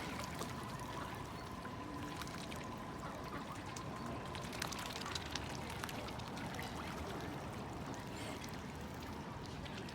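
Water trickling and splashing steadily, with many small clicks and ticks.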